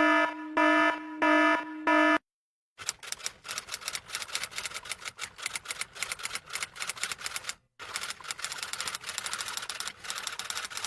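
Four short, evenly spaced electronic beeps of one pitch, then a long run of fast typing clicks with a brief pause partway through.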